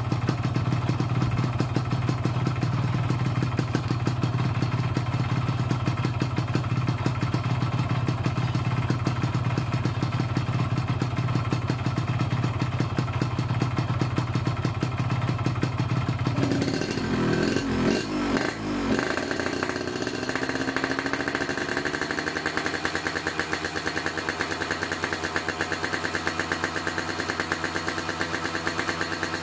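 Yamaha RX-King's two-stroke single-cylinder engine idling steadily through an aftermarket Altech C20 exhaust. About seventeen seconds in, the note turns rough for a couple of seconds, then settles into a new steady idle that creeps up in pitch before holding.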